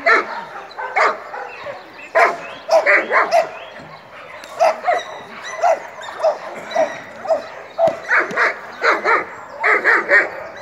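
Dog barking over and over, with short single barks coming every half second or so, a brief lull about four seconds in, and quicker runs of barks near the end.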